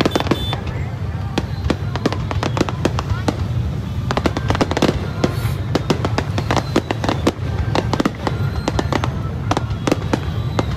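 Aerial fireworks display: a dense run of sharp cracks and pops from bursting shells, many close together, over the steady low hubbub of a large crowd.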